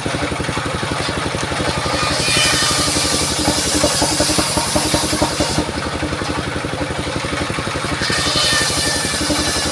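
Engine-driven mobile circular sawmill running steadily while its blade cuts through a mahogany log; a high hissing rasp of the cut comes in about two seconds in, drops away after about five seconds, and returns near the end.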